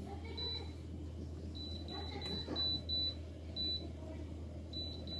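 A series of short, high electronic beeps at irregular spacing, some in quick succession, as on a cooktop's control panel being set, over a steady low hum.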